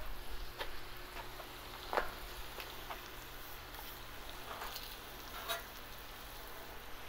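Shaved steak, peppers and onions sizzling faintly on a hot flat-top griddle, with a few light clicks of metal spatulas against the griddle.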